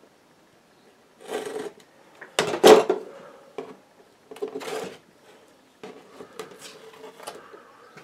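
Masking tape being cut and pulled free of a painting on its board: three short rasping rips, the loudest about two and a half seconds in, followed by light ticks and scrapes as the painting is handled.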